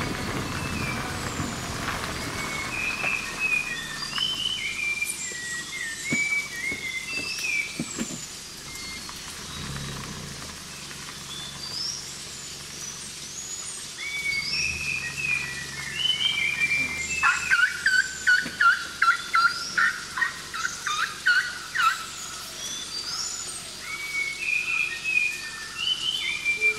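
Several forest birds singing and calling with short chirping and whistled phrases, and a loud run of repeated notes, about three a second, over several seconds in the later part. A faint low steady hum lies underneath in the first half.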